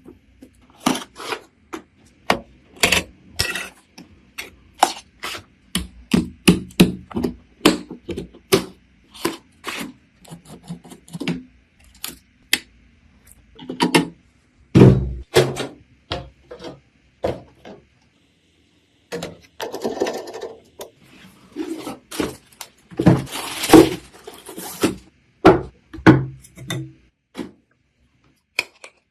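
PC parts being handled and fitted by hand: a run of separate clicks, taps and knocks, with a heavier thump about 15 seconds in and stretches of rubbing or sliding around 20 and 24 seconds in.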